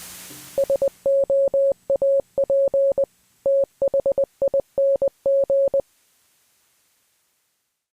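A single steady electronic beep tone keyed in short and long pulses like Morse code, spelling out "SOAP THING". A hiss fades away just before the beeps begin.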